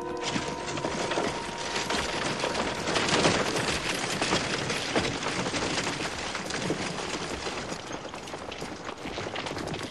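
Dense, continuous rifle and machine-gun fire from a battle scene, loudest a few seconds in and easing a little near the end.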